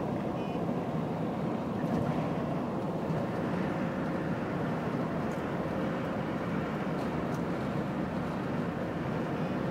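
Steady road and engine noise of a car driving at speed, heard from inside the cabin, with a few faint ticks.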